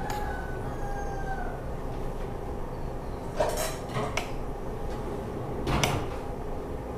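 Spoon and fork clinking and scraping on a dinner plate while someone eats, with a few sharp clinks about three and a half, four and six seconds in, over a steady background hum.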